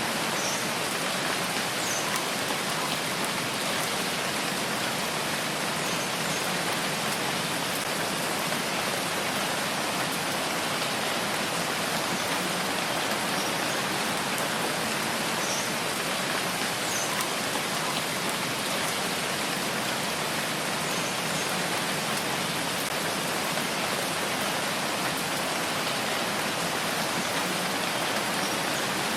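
Steady rain falling, a constant even hiss of many drops.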